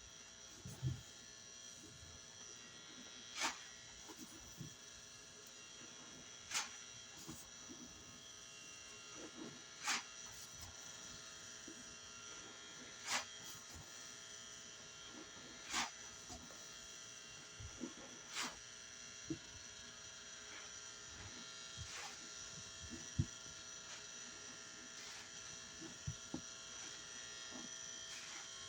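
Fluorescent light fixture buzzing with a steady high-pitched hum, with a short sharp click about every three seconds.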